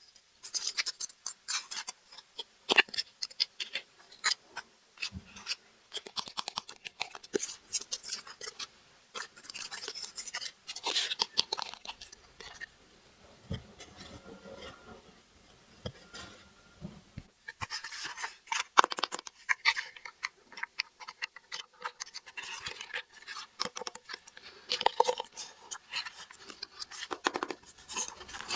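Hands unboxing small plastic toys: irregular scratching, crinkling and light clicks of plastic pieces and packaging being handled, with short pauses.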